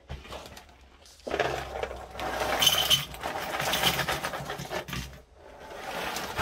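Cheez-It crackers poured from a family-size cardboard box into a bowl: a dense rattling clatter of dry crackers that starts about a second in and tapers off near the end.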